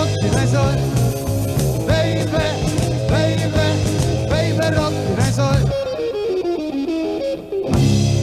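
Rock band instrumental break: lead guitar playing bending lines over bass and drums. About six seconds in, the bass and drums drop out while the guitar plays a falling run alone, and the full band comes back in near the end.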